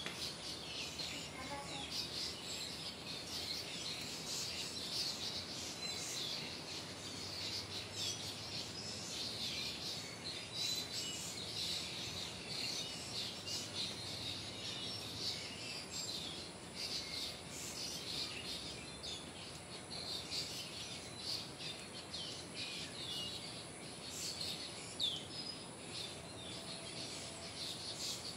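Small birds chirping: many short, high calls and quick slurred whistles, over a steady background hiss.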